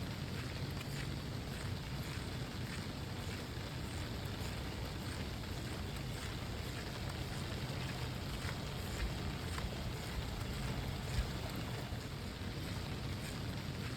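Steady rain falling, an even hiss over a low rumble, with faint scattered ticks of drops.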